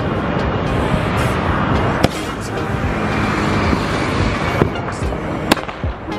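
Diwali fireworks going off: a continuous crackling, hissing din with sharp bangs about two, four and a half and five and a half seconds in, as a lit sky rocket takes off and streaks up trailing sparks.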